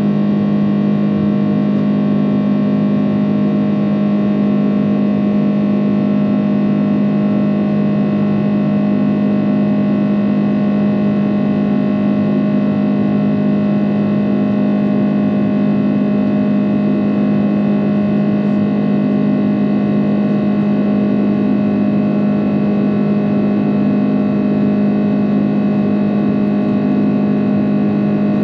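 Airbus A330-300's jet engines and airflow heard inside the passenger cabin during the climb after takeoff: a steady loud drone with a strong low hum and a set of steady higher tones.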